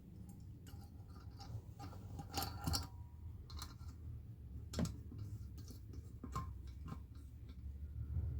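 Scattered light metallic clicks and clinks of a valve spring compressor and valve parts being handled on a cylinder head, over a low steady hum.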